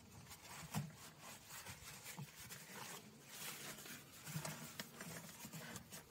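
Faint rustling and handling of a folded sheet of paper kitchen roll, with scattered light clicks.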